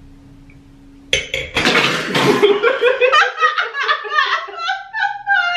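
A man and a woman sputter out mouthfuls of water with a sudden spray about a second in, then break into rhythmic bursts of laughter.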